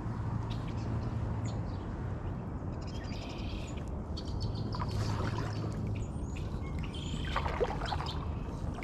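A kayak being paddled: the paddle dipping and water moving along the hull over a steady low rumble, with birds chirping now and then, around three seconds in and again near the end.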